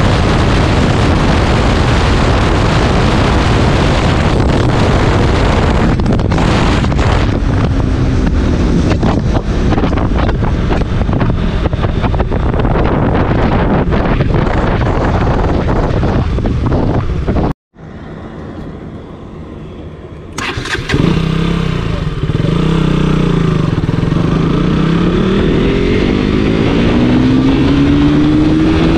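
KTM RC 200's single-cylinder engine heard with heavy wind noise while riding, then, after a sudden break, running on its own with a clear note that is revved in rising sweeps near the end.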